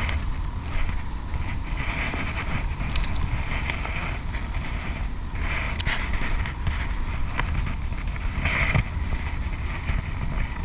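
Wind buffeting the camera microphone as a steady low rumble, with brief hissy rustles about two, five and a half, and eight and a half seconds in.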